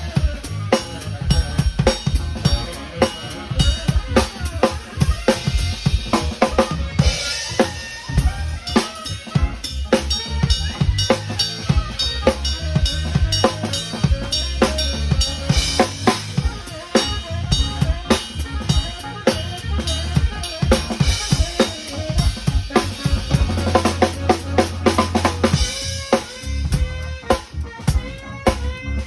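Drum kit played continuously, with kick drum, snare and rimshot strokes in a steady groove.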